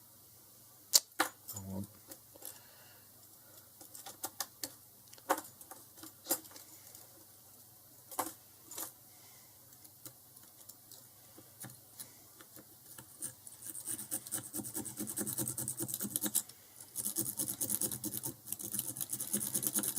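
Lock pick working the pin stack of a Squire SS50C padlock under tension: scattered sharp clicks of pins being set in the first half, then quick, rapid scraping and clicking of the pick raking the pins past the middle, with a brief pause. The padlock is being worked into a false set.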